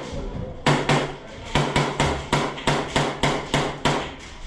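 Airsoft gun firing in rapid strings of sharp cracks, about six or seven shots a second: a short burst about half a second in, then after a brief pause a longer string that stops near the end, with a low motor hum under the shots.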